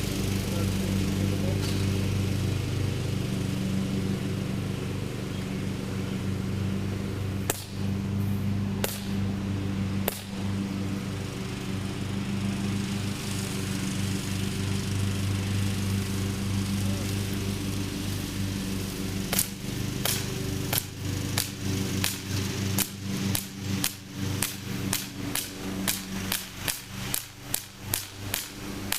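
CO2-powered Crosman 1911BB BB pistol firing: three single pops about a second apart, then after a pause a long rapid string of shots, about two a second. A steady low mechanical hum runs underneath.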